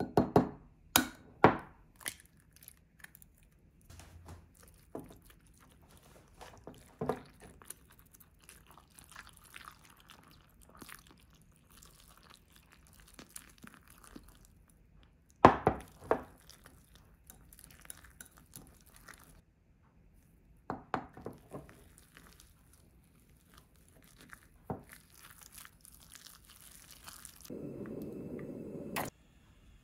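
An egg tapped a few times and cracked in the first two seconds, then a small wire whisk stirring mashed tofu and egg in a glass measuring cup, with scattered clinks and knocks against the glass. Near the end there is a short steady rush as oil goes into a frying pan, which ends with a click.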